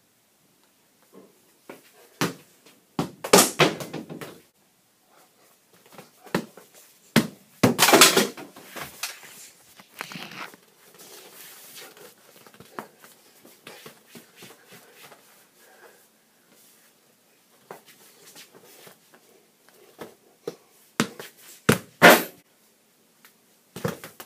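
A soccer ball being tapped, kicked and bounced on a hard floor, with feet stepping and scuffing, in irregular spells of knocks and thumps. The loudest spells come a few seconds in, around eight seconds and near the end, with quieter scattered taps between.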